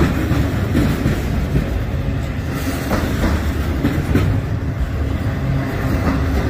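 Freight train rolling past with a steady rumble, its wheels clicking irregularly over the rail joints.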